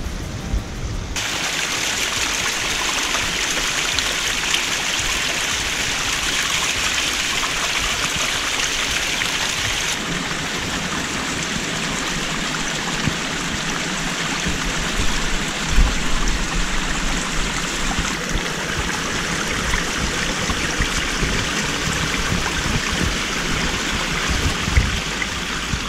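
A small mountain stream running and splashing over rocks, a steady rush of water that starts about a second in and changes tone twice.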